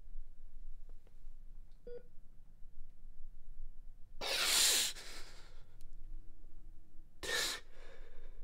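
A man crying without words: a short catch in the voice about two seconds in, then a long, heavy sobbing breath about four seconds in and a shorter one about seven seconds in.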